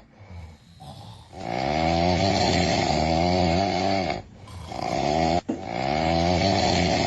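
Loud snoring with a wavering pitch: two long snores of about three seconds each, with short quieter pauses between.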